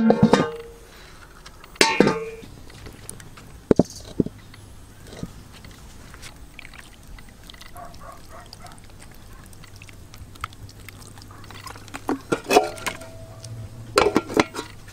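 Cooking pots, dishes and utensils clinking and knocking in a few short clusters, each with a brief ringing tone: near the start, about two seconds in, and again near the end. A low steady hum runs underneath from about three seconds in.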